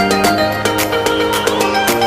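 Background music: an upbeat track with sustained chords and a steady beat.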